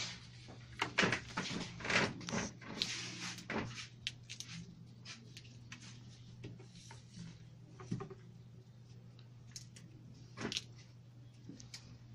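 Leafy stems of white roses rustling and crackling as their leaves are stripped off by hand, with scattered knocks of stems against the counter. The handling is busiest in the first few seconds, then thins to occasional rustles and knocks, over a steady low hum.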